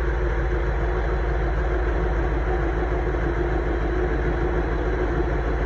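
Railway vehicle standing at the platform with its engine idling: a steady, even hum with a low rumble and a constant mid-pitched drone.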